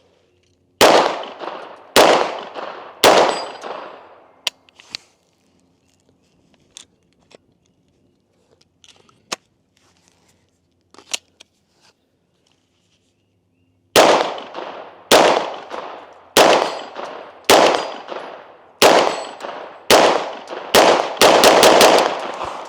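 Bear Creek Arsenal bufferless 9mm AR carbine firing single shots: three shots about a second apart, a long pause broken only by a few faint clicks, then about ten more shots, the last several in quick succession, each shot ringing out briefly. The gun is having failures to feed with this magazine.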